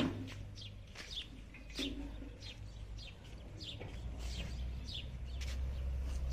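Small birds chirping: a quick series of short, high, falling chirps, a few each second, over a steady low hum.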